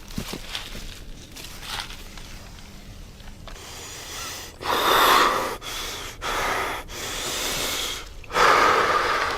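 A person breathing heavily: loud, rasping breaths starting about halfway through, a strong one, a few lighter ones, then another strong one near the end.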